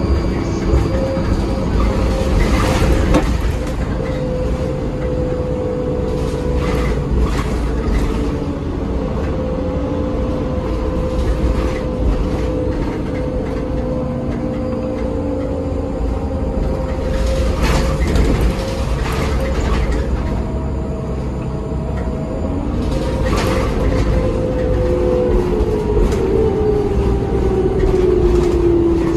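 Cabin noise inside a moving New Flyer DE60LFR articulated hybrid bus: a steady low rumble and road noise from its Cummins ISL diesel and Allison EP50 hybrid drive, with a steady whine that falls in pitch near the end. Interior panels rattle briefly now and then.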